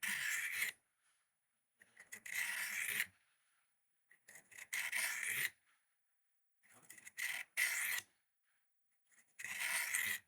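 Pocket knife blade stroked across the abrasive of a cheap handheld Work Sharp-style knife sharpener: five gritty rasping passes, about one every two seconds, with short pauses between.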